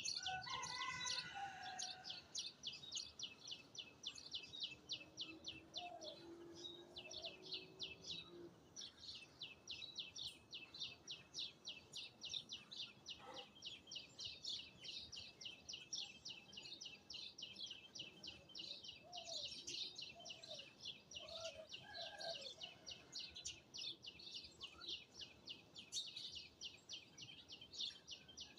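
Birds chirping: a steady run of rapid, even, high-pitched chirps, about four a second, with scattered lower whistled calls that rise and fall over it.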